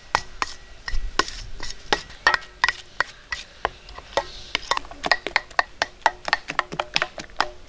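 A metal spoon clinking and scraping against a stainless steel bowl while mixing a thick cream-and-spice marinade, each tap ringing briefly. The clinks come quicker from about halfway through.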